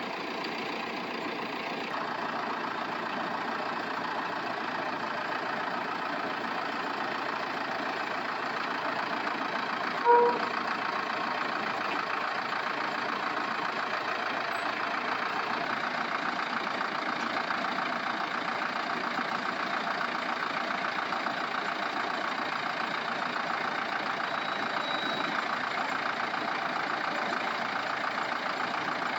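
An engine running steadily, with a short beep about ten seconds in.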